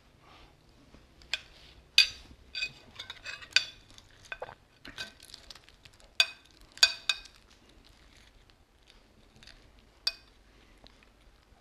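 Cutlery clinking and scraping against plates while eating, as scattered sharp clinks with quieter scrapes between them; the loudest clinks come about two seconds in and around six to seven seconds in.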